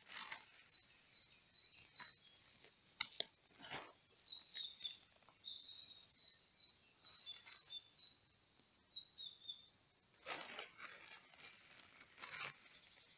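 Small birds chirping high and steadily, with a few short crinkling rustles of a plastic poncho being handled and smoothed on the ground and footsteps through undergrowth; the loudest rustles come about ten and twelve seconds in.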